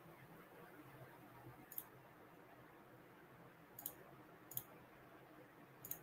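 Four faint, sharp clicks over near-silent room tone, about two, four, four and a half and six seconds in.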